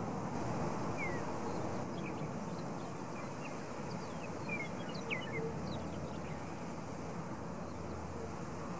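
Small birds chirping, several short scattered calls over the first six seconds or so, above a steady rushing background noise.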